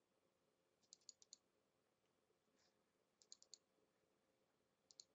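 Faint clicking of a computer mouse: three quick runs of four or five ticks each, about a second, three and a quarter seconds and five seconds in.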